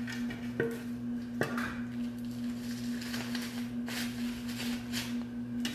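Scattered crinkles and crunches of cookies being crushed by hand inside a bag, over a steady low hum.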